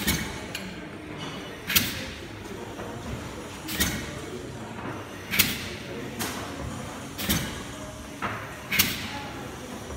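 Cross-compound mill steam engine turning over slowly during start-up: about five sharp hissing beats, one every one and a half to two seconds, over a steady low rumble.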